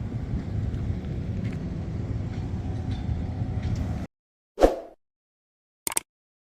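Rice combine harvester's engine running with a steady low rumble, cut off abruptly about four seconds in. A single short sharp sound follows, then a couple of quick clicks near the end.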